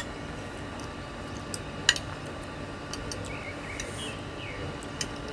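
Light clinks and taps of tableware while eating, with one sharper click about two seconds in and a few fainter ticks.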